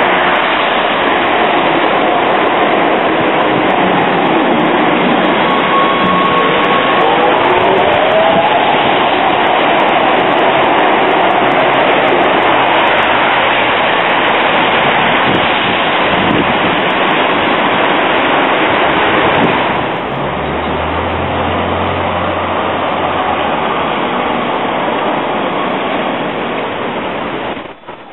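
Light-rail trams at a wet stop: a loud, steady rushing noise throughout, with brief squealing tones that glide up and down about six to nine seconds in. About twenty seconds in the noise eases a little and a low steady hum sets in for a few seconds.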